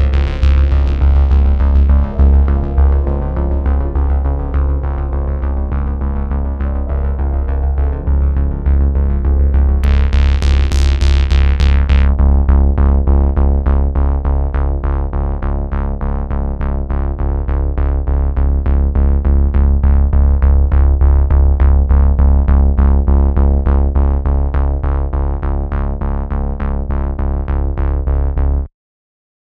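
Background music with a steady deep bass and a quick pulsing beat. A bright swell rises about ten seconds in, and the music cuts off suddenly near the end.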